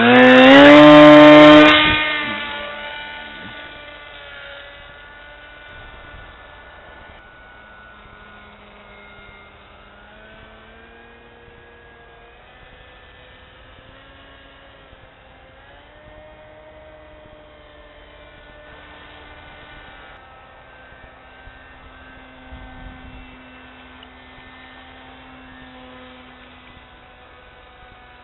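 Motor and propeller of a radio-controlled scale model Siebel 201 at full power close by, loud for the first two seconds. The sound then fades to a faint, distant whine that wavers slowly in pitch as the model flies around.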